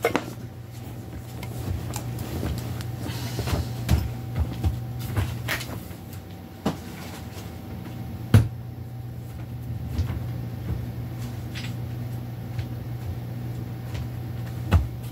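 Scattered knocks and clunks of objects being handled and set down, the loudest about eight seconds in, over a steady low hum.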